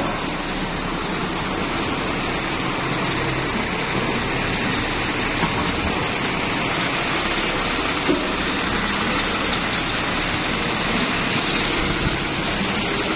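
Mitsubishi FD115 11-ton diesel forklift's engine running steadily as the forklift carries a heavy load on its forks, with a few small clicks.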